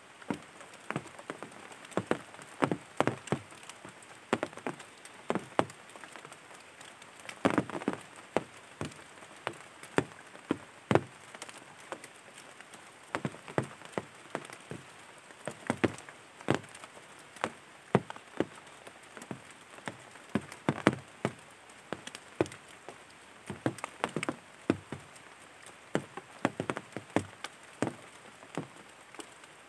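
Irregular sharp ticks and taps, one to three a second and some louder than others, over a faint steady hiss: the patter of water dripping.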